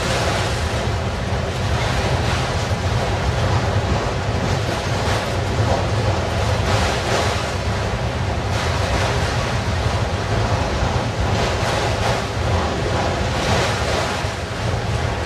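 Freight train of autorack cars rolling past: a steady, unbroken noise of steel wheels running on the rails, with a deep low rumble underneath.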